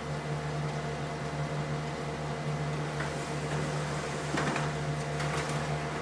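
Brother HL-L2405W laser printer printing a page: a steady hum from its running motors, with a faint click about three seconds in and a brief louder patch a little after four seconds as the sheet feeds through.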